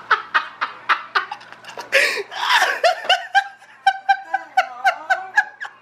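A person laughing hard in quick breathy pulses, about five a second.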